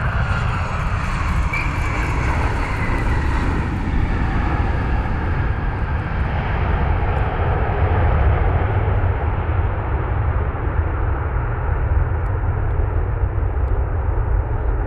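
Jet engines of a United Airlines Boeing 737 landing and rolling out: a steady, loud jet rumble with a whine falling in pitch in the first few seconds. The higher hiss fades as the plane rolls away.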